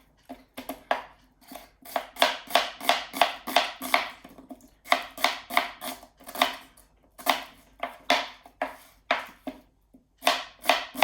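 Kitchen knife chopping a white onion on a chopping board: a quick run of sharp strokes, about three a second, with two short pauses.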